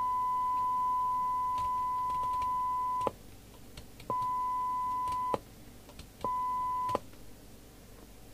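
A steady 1 kHz test tone from the CB radio's speaker: the signal generator's modulation recovered by the receiver. It sounds for about three seconds, then twice more briefly, each time cutting in and out abruptly as the squelch opens and closes, with faint clicks in between.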